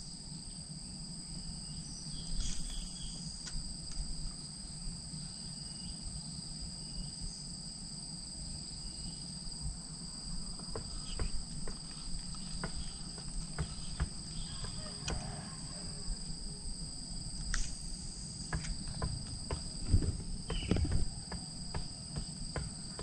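Insects droning steadily in two high-pitched tones, with scattered faint clicks and a low rumble underneath.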